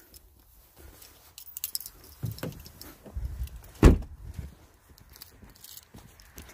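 Fishing rods and gear clinking and rattling as they are handled in a car's trunk, then a single heavy thump about four seconds in as the trunk lid is shut.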